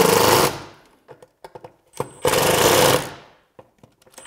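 Power screwdriver running in short bursts, driving mounting screws home into a boat's transom: one burst ends about half a second in, another runs for just under a second around the two-second mark, and a third starts at the very end.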